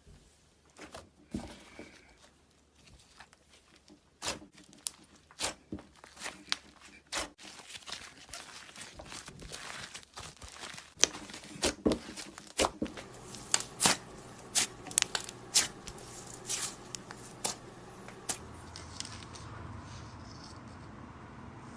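Slime being pressed and stretched by hand, with irregular sharp pops and clicks from air pockets bursting. The pops come sparsely at first, crowd together from about four seconds in, and thin out near the end.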